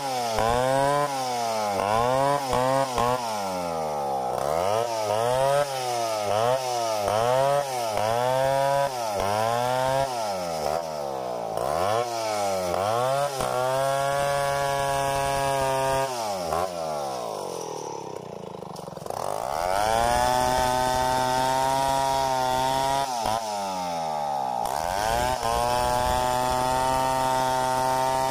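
Stihl 070 two-stroke chainsaw ripping boards freehand, its engine pitch rising and falling about once a second as the long bar works through the cut. It then holds steady at full speed, sags briefly about two-thirds of the way through and revs back up.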